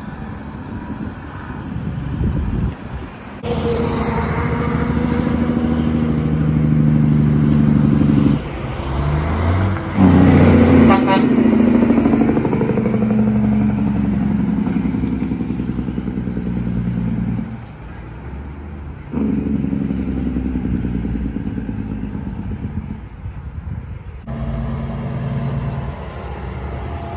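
Semi trucks' diesel engines using their compression-release engine brakes (Jake brakes) as they slow. The engine braking is loud, with several trucks heard in turn and abrupt switches from one to the next.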